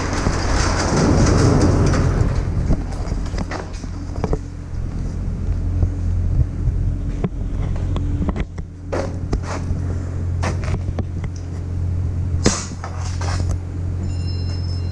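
A steady low engine-like hum under scattered sharp knocks and clanks, as corrugated steel grain-bin ring sections are handled.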